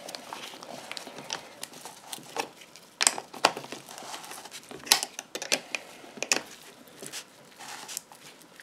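Band-type piston ring compressor being tightened by hand around an oiled piston: scattered sharp metal clicks and light clatter from the band and its ratchet, over soft handling noise.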